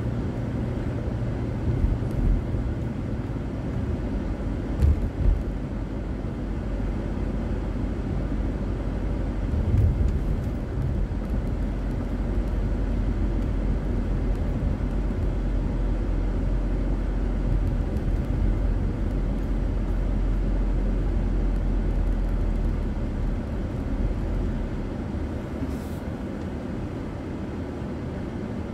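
Car interior road noise as picked up by a dashboard camera: a steady low rumble of engine and tyres, with a few brief thumps about five and ten seconds in. It grows quieter near the end as the car slows to a stop.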